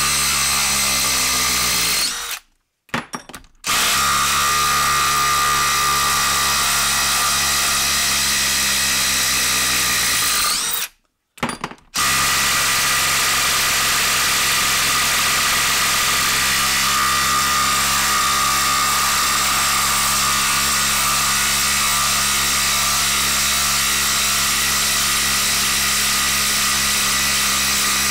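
DeWalt cordless impact driver hammering as it backs a long lag bolt out of a wood stump, with a high whine over the rapid impacts. It stops briefly twice, about two seconds in and about eleven seconds in, and runs steadily the rest of the time.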